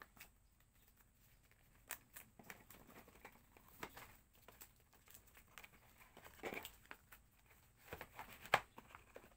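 Faint crinkling and rustling of packaging being handled by hand, with scattered light taps and clicks. The loudest rustle comes about six and a half seconds in, and a sharp tap about eight and a half seconds in.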